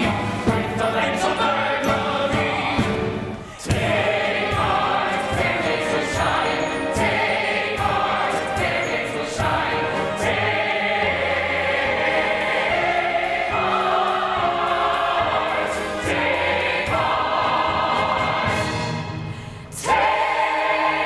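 A comic-opera chorus singing with musical accompaniment, as excerpts spliced together: the music breaks off and jumps to a new passage about three and a half seconds in and again near the end.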